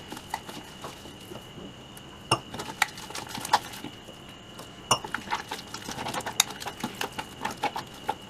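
Hand mixing gram-flour (besan) batter in a stainless steel bowl, squeezed through the fingers to work out lumps. It makes irregular wet squishes and taps, with sharper clinks now and then as fingers and knuckles knock the metal bowl.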